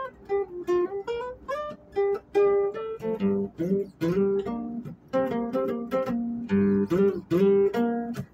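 Music: an acoustic guitar playing a melody of plucked notes.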